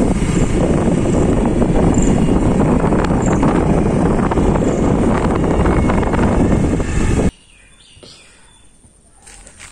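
Loud, steady rush of wind on the microphone mixed with the running of a moving motor scooter. It cuts off suddenly about seven seconds in, leaving quiet outdoor background with a few light clicks.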